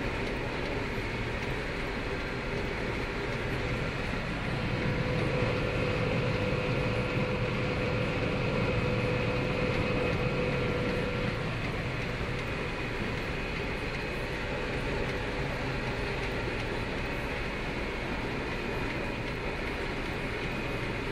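Combine harvester running steadily while harvesting maize, heard from the cab: a constant machine drone with a faint high whine. A steadier tone joins about four seconds in and fades about eleven seconds in.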